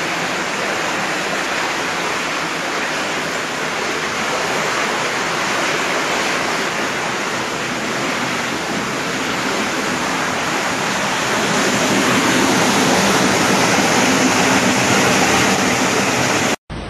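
Muddy floodwater gushing into a house through a window and doorway and rushing across the flooded floor: a loud, steady rush of water that grows louder about two-thirds of the way through and cuts off abruptly just before the end.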